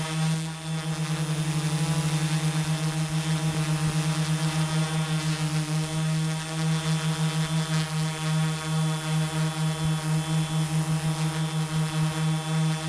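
Tarot Iron Man 650 drone's Turnigy Multistar 4822 brushless motors and propellers in flight, recorded from the drone itself: a steady hum with a fast, even pulsing.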